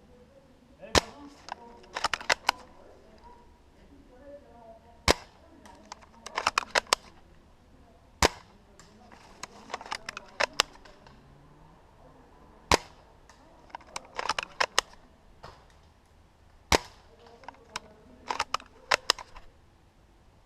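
Airsoft guns firing: a sharp single shot about every four seconds, with rapid bursts of quieter shots in between.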